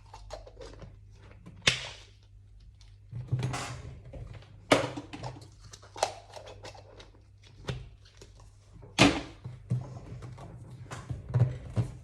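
Small toys and packaging being handled and put away: rustling with a few sharp knocks and clicks, about four of them clearly louder than the rest.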